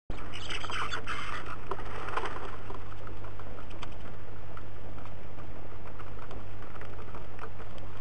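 A flock of bramblings and great tits at a wooden seed feeder: soft calls and chatter in the first couple of seconds, and scattered light ticks of beaks pecking seed on the tray, over a steady low hum.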